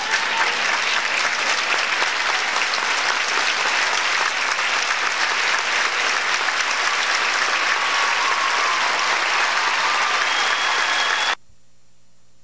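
A large audience applauding steadily in a hall, with a few whistles. The applause cuts off abruptly near the end where the recording ends, leaving a faint steady hum.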